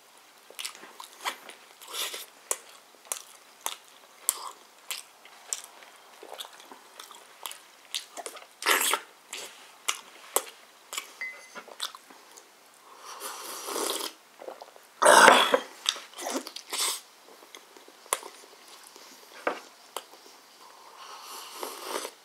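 A person eating close to the microphone, chewing and biting chicken and peeled boiled egg: a steady run of short mouth clicks and smacks, with a few louder ones about two-thirds of the way through.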